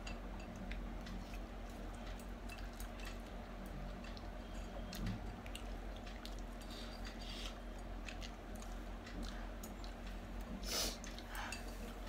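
Quiet eating sounds: a fork and spoon clicking and scraping against glass bowls, with chewing and slurping of instant noodles, and one louder short burst near the end. A low steady hum runs underneath.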